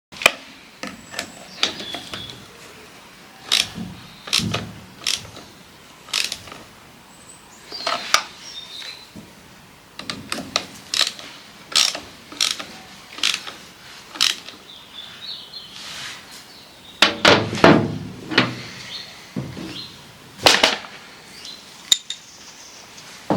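Spanners and metal parts clinking and knocking on the topper's gearbox during repair work: irregular sharp metallic clicks, with a quick cluster of knocks about two-thirds of the way through.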